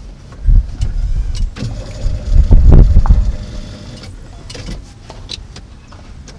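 Low thuds and rustling from a person shifting his body in a van's driver's seat, with a few sharp clicks. The loudest bumps come about two and a half to three seconds in, then it quiets down.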